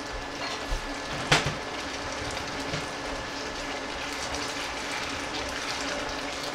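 Sweet and sour sauce with peppers and pineapple sizzling steadily in a frying pan as it heats and is stirred with tongs. The tongs knock sharply against the pan once, about a second in.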